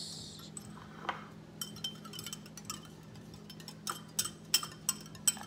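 Metal wire whisk clinking against a glass mixing bowl of beaten eggs: scattered light taps at first, coming quicker near the end.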